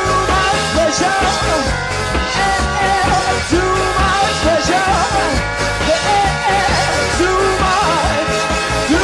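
Recorded post-punk reggae band music: drums, bass guitar, guitar and keyboards playing a steady beat.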